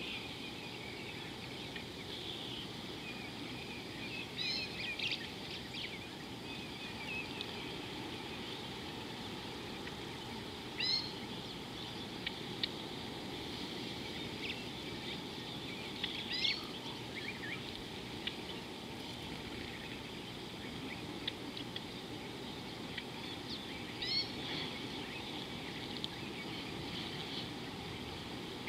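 A bird repeats a short rising call about every six seconds over a steady hiss of outdoor ambience.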